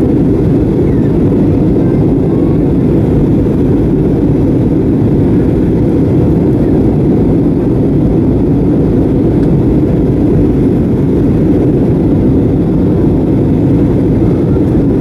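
Steady, low-pitched rushing noise of airflow and jet engines inside the passenger cabin of an Airbus A320neo airliner in flight.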